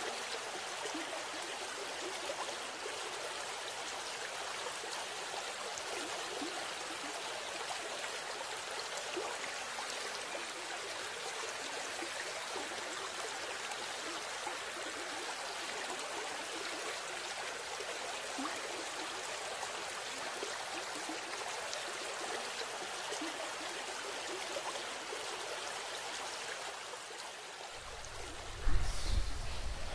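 Steady rush of a stream flowing over rocks. Near the end, a loud, deep thud cuts in over it.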